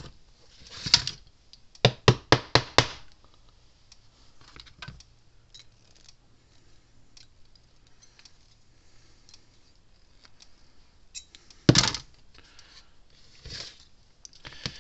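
Clicks and knocks from parts and hand tools being handled on a workbench around an open plastic fence-charger case and its capacitor. A quick run of about five clicks comes about two seconds in, and a loud single knock near the end.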